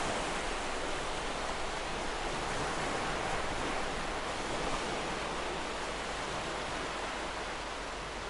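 Ocean waves washing on the shore, heard as a steady rushing noise.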